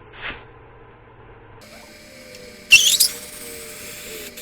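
Compressed air hissing into a patched tractor inner tube, inflating it to test that the patch holds. The hiss starts about a second and a half in, with a loud, brief shrill squeal near the middle.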